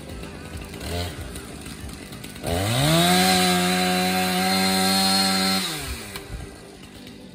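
Chainsaw idling, blipped briefly about a second in, then revved up to full throttle and held there for about three seconds as it cuts into a tree trunk, before dropping back to idle.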